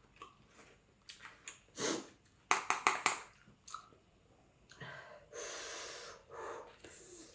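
Sharp breaths, sniffs and hissing exhales of a person reacting to very spicy food, with a quick run of clicks about two and a half seconds in.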